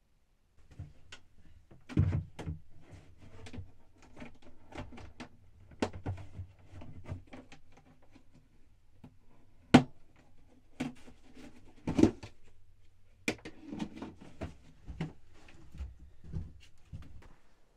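Irregular knocks, clunks and clicks of objects being handled in a small room, with the sharpest hits about two, ten and twelve seconds in, over a faint steady low rumble.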